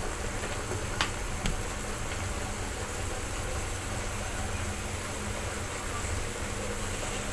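Steady low hum and hiss from the stove, with two light knocks of a wooden spatula against an aluminium wok, about a second in and half a second later.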